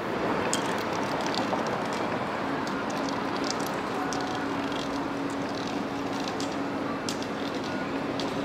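City street traffic noise at a busy crossing. A steady low hum joins about two and a half seconds in, and light ticks are scattered throughout.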